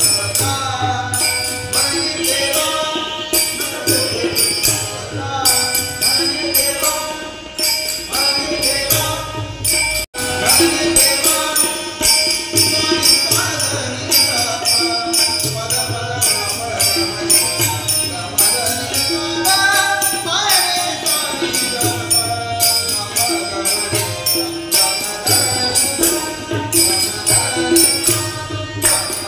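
A man sings a devotional song to harmonium, with tabla and small hand cymbals (manjira) keeping a steady, fast beat. The sound drops out for a split second about ten seconds in.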